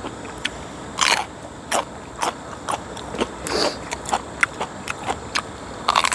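Eating sounds close to a clip-on microphone: irregular crunches and wet clicks of chewing, about two a second, with a crisp bite into a raw green chili pepper near the end.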